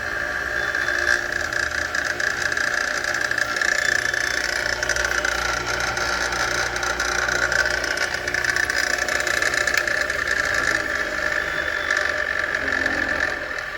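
A 6-inch bench grinder with a single grinding wheel fitted, running steadily at speed with a high, steady whine and a low motor hum. The sound drops off near the end.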